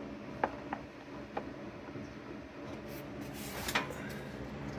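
Oil drain plug being unscrewed by hand from the oil pan of a 2016 Ford Transit's 3.7L V6, with a few light clicks and rubbing. A short swell of noise comes near the end as the plug comes free and the oil starts to drain.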